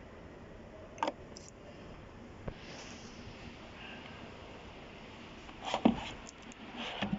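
Quiet room tone broken by a few short clicks and knocks: a single click about a second in, a faint tick, then a couple of quick knocks near the end, as of something being handled.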